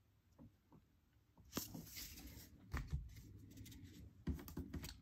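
Faint rustles and soft clicks of a stack of baseball trading cards being handled and slid against one another, a few short ones about one and a half, three and four and a half seconds in.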